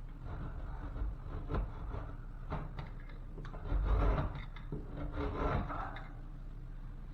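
Razor-blade utility knife cutting through a drywall ceiling by hand in several uneven scraping strokes, the strongest about four and five and a half seconds in.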